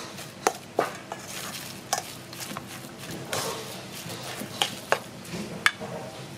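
Metal spoon mixing minced raw meat in a stainless steel bowl: soft squelching with several sharp clinks of the spoon against the bowl.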